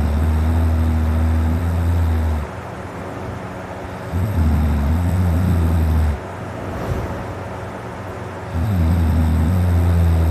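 A man snoring deeply, his throat dry and sore: three long, low snores of about two seconds each, roughly four seconds apart, with quieter breathing noise between.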